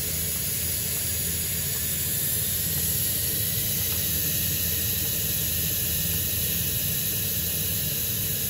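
Electric pressure multicooker venting steam through its pressure-release valve: a steady loud hiss as the cooker's pressure is let down after cooking, over a steady low hum.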